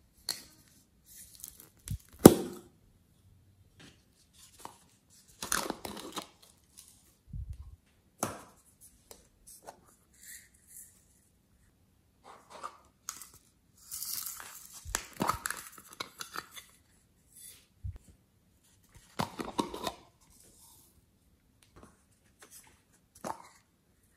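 Small plastic cups and egg-shaped containers handled by hand: scattered clicks and knocks as they are picked up, set down and opened, with short rustling scrapes between. A sharp click about two seconds in is the loudest.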